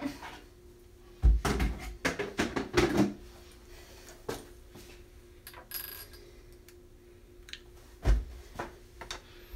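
Handling noises. A cluster of knocks and clatter starts about a second in and lasts about two seconds, a few faint clicks follow, and a single dull thump comes near the end.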